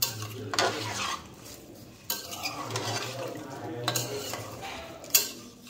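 A utensil stirring boroi pickle in a cooking pot, scraping along the pot and knocking against its sides several times.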